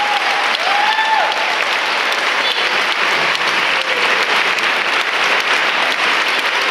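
Audience applauding steadily, with a few drawn-out cheers rising and falling in pitch in the first second or so.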